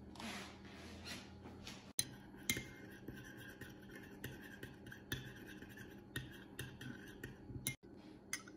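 Metal spoon stirring melted butter glaze in a small ceramic ramekin: a scrape at first, then a run of light clinks and taps against the bowl.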